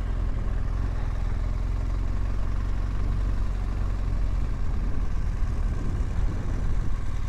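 BMW R1200GSA boxer-twin motorcycle engine running steadily while riding on hard beach sand, with a low steady rumble of wind on the microphone.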